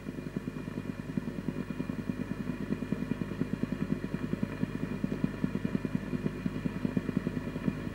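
Steady mechanical whirr with a low hum and a fast, even flutter, like a small motor running.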